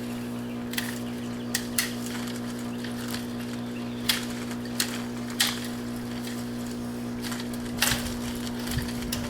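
A steady low mechanical hum from a running motor, with about seven short sharp snaps or clicks scattered through it.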